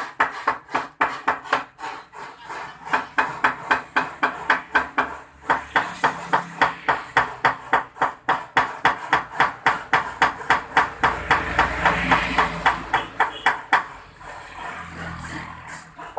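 Rapid, regular strokes on a car radiator, about three or four a second, as it is cleaned at the start of a repair. The strokes break off briefly a few times and go softer near the end.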